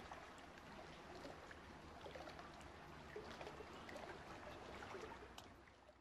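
Faint water ambience: gentle trickling and lapping with a few small ticks, fading out at the end.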